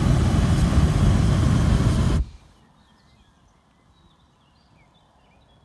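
Hot air balloon's propane burner firing in a loud, steady roar that cuts off abruptly about two seconds in. Afterwards it is quiet, with faint bird chirps.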